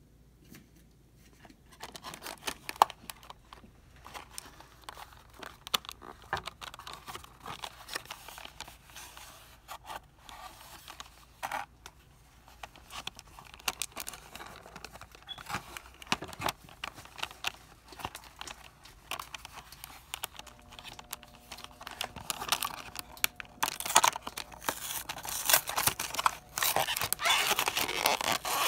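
Cardboard candy boxes with clear plastic windows being handled close up: crinkling, tapping and scraping. It gets busier and louder near the end as a box's end flap is pulled open with a tearing sound.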